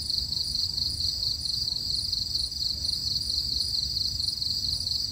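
Crickets trilling steadily: a continuous high, fast-throbbing chirr, with a second, higher call pulsing about twice a second over a low rumble.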